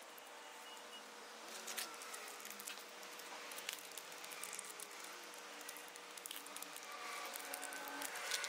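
Faint rustling and light clicks of hands handling a clear plastic mold holding a cured epoxy resin piece, wiping it with a tissue and pressing at its edges, with a few sharper clicks about two and four seconds in and near the end.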